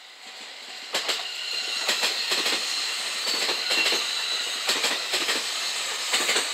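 A four-car JR West 227 series electric multiple unit running past, its wheels clicking in quick groups over the rail joints, with a steady high whine above the clicking. The sound swells about a second in and stays loud.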